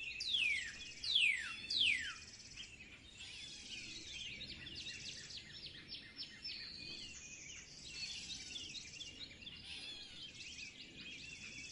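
Several birds chirping and singing, with three loud whistled calls that sweep downward in pitch in the first two seconds, over many quick high chirps.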